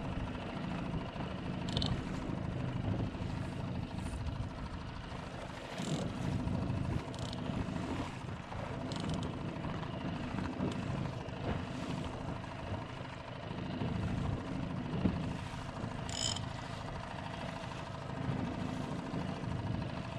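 Small Honda outboard motor running steadily, pushing the inflatable boat across the water. Water slaps against the hull a few times, short and high over the engine's steady hum.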